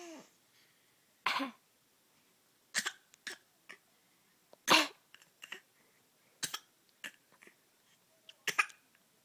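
A series of short coughs, about six, spaced a second or two apart, the loudest near the middle.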